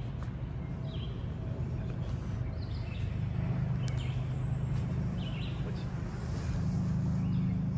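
Short bird chirps, repeating roughly once a second, over a steady low rumble.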